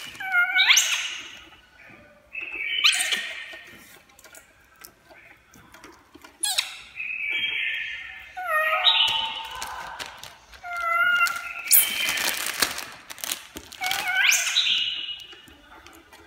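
Baby macaque giving a string of high-pitched squealing calls, one every second or two, some swooping up and then falling. Scuffling and clicking noises come between the calls, with a noisy scrabbling stretch about two-thirds of the way through.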